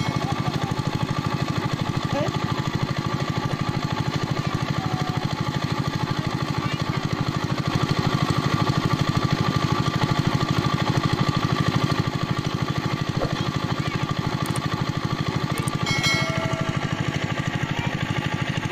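A small engine running steadily with a rapid, even beat, a little louder for a few seconds midway.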